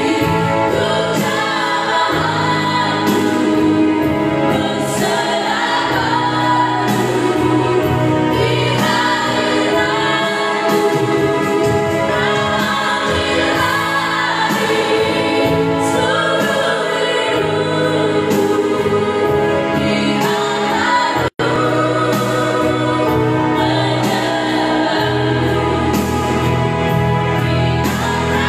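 Four women singing a gospel praise song into microphones, accompanied by an electronic keyboard holding sustained low bass notes. The sound cuts out for an instant about two-thirds of the way through.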